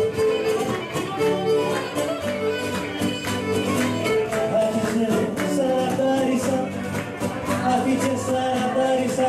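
Live Cretan folk dance music: a bowed string instrument carries the melody over plucked lutes keeping a steady, even beat.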